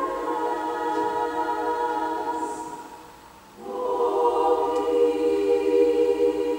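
Women's choir singing sacred music a cappella: sustained chords die away about three seconds in, then after a short pause the voices come back in together on a new chord.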